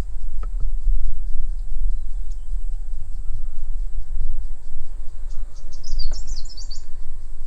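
Insects, crickets by their steady high pulsing, calling throughout, with a bird's quick burst of high chirps about five to six seconds in. A low rumble runs underneath and is the loudest thing.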